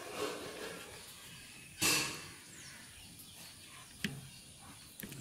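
Duck eggs set by hand into a plastic basin, with soft taps of eggshell on plastic. A brief, louder sound comes just before two seconds in.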